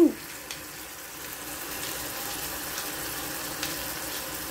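Beef chunks sizzling and bubbling in the liquid they have released in an uncovered saucepan, still wet before the juices cook off and the meat starts to fry. A hand pepper mill turned over the pan adds a few faint clicks.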